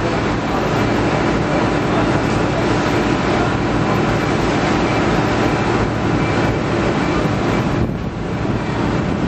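Star Ferry's engine running under way: a steady drone with a constant hum beneath a broad rushing noise, easing slightly about eight seconds in.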